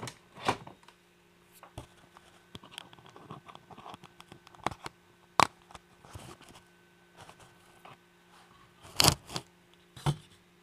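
Scattered small clicks, scratches and rustles of handling, with a louder pair of clicks about nine seconds in, over a faint steady hum; the router is not running.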